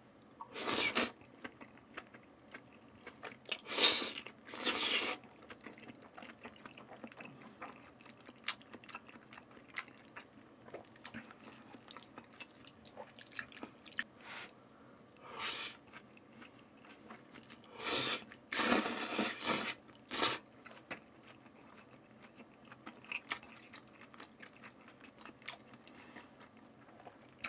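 Close-up eating sounds from a mouth eating raw salmon strips in a soy dressing: steady quiet chewing, broken by several loud slurps about a second long as the long strips are sucked in. The longest run of slurps comes about two-thirds of the way through.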